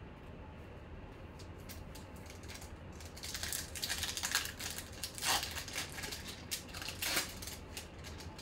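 A trading card pack's foil wrapper crinkling and crackling as it is torn open by hand. It starts about three seconds in and is densest around the middle, over a low steady hum.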